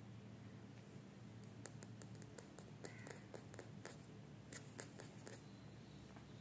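Near silence with a steady low hum, and a scatter of faint short clicks and scratches in the middle: a kitten's claws on a tile floor and at a rug's fringe as it plays.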